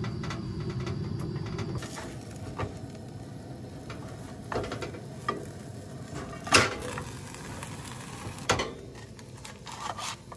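Quesadilla frying in a nonstick pan on a Coleman propane camp stove: a soft sizzle with scattered knocks and scrapes of the pan and spatula, the loudest about six and a half seconds in.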